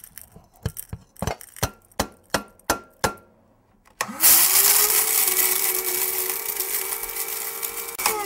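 A string of sharp clicks, then about four seconds in an electric blade spice grinder starts up, its motor rising quickly to a steady whine as it grinds toasted fenugreek, fennel and coriander seeds. The motor begins to wind down at the very end.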